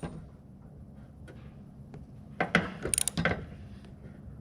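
Ratchet wrench clicking as it snugs up a threaded oil screen fitting on an aircraft engine, with a quick run of clicks a little past halfway through after a quiet stretch.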